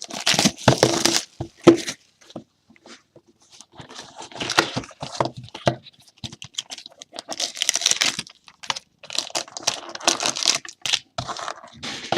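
Plastic shrink-wrap being torn off and crinkled while a sealed box of trading cards is opened, in several short bouts of tearing and rustling.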